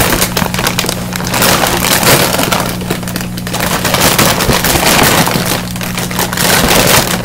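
Loud, continuous crinkling and rustling of a bag being rummaged through close to the microphone. It swells and eases a few times over a low steady hum.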